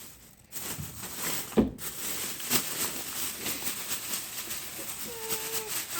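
Packaging being rummaged through: a dense rustle and crinkle of wrapping, with a thump about a second and a half in. A short high-pitched sound comes near the end.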